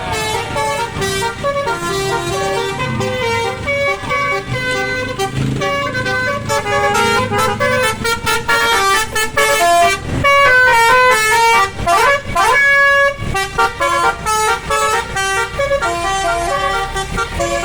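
Basuri 'telolet' multi-tone musical horn on a bus playing a fast melody of short stepped horn notes, with sliding swoops in pitch about twelve seconds in.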